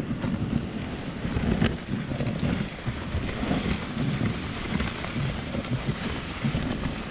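Wind buffeting the microphone of a camera on a moving dog sled: a low, gusting noise that rises and falls without a break.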